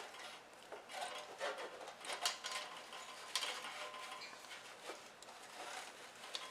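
Artificial leaf garland rustling as it is handled and slid down inside a lantern, with a few scattered light taps and clicks.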